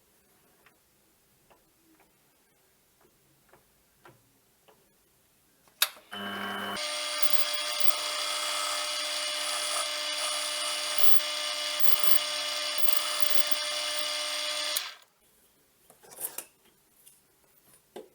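Small metalworking lathe switched on with a sharp click about six seconds in, spinning up in under a second to a steady whine with many overtones, running for about eight seconds and then stopping abruptly. Light clicks and taps of handling before and after.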